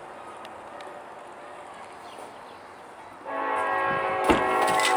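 Air horn of an approaching EMD SD70ACe diesel locomotive, starting about three seconds in as one long steady blast after a stretch of quiet outdoor background. A brief sharp thump sounds about a second after the horn starts.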